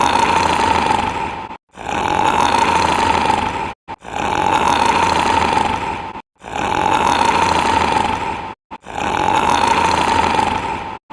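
Loud snoring in long strokes of about two seconds each, five in a row, with only a very short break between them.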